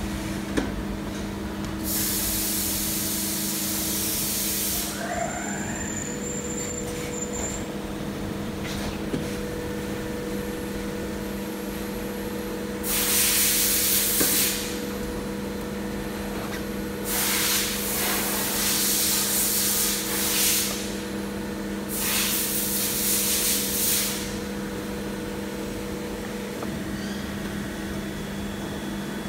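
A wooden screen-printing squeegee scraped across the silk-screen mesh, spreading silicone ink in four long scraping strokes of about one and a half to three seconds each. A steady machine hum runs underneath.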